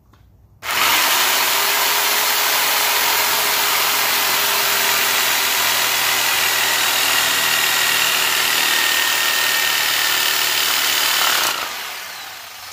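Chicago Electric electric jigsaw cutting through a black plastic trolling-motor mount bracket. It starts abruptly about half a second in and runs steadily loud with a motor whine for about eleven seconds, then winds down near the end as the blade comes out of the cut.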